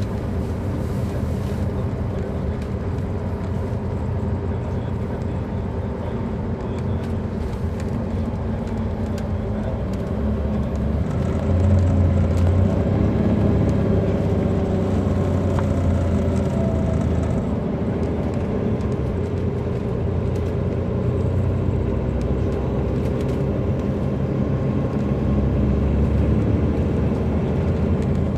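Caterpillar C13 diesel engine of a 2007 MCI D4500CL coach running while the bus is under way, heard from inside the passenger cabin. It gets louder and deeper about eleven seconds in.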